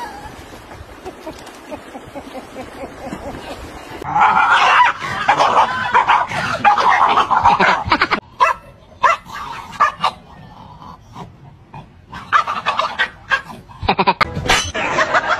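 Wind and small waves lapping, then from about four seconds in, dogs vocalising in loud, pitched, broken calls with short gaps between them.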